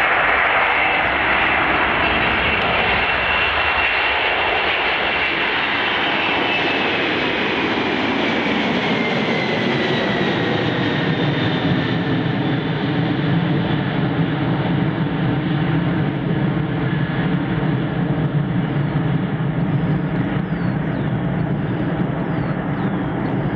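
Jet engines of a Boeing 767-300ER freighter on its landing roll, loud and steady. A high whine slides down in pitch over several seconds, then settles into a lower, steadier drone as the engines spool down.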